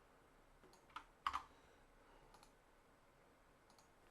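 Near silence broken by a few scattered clicks of computer keyboard keys, the loudest two about a second in.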